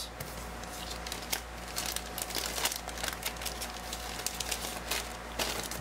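Thin clear plastic bag crinkling and crackling in the hands as a paper decal sheet is handled with it: many small irregular crackles.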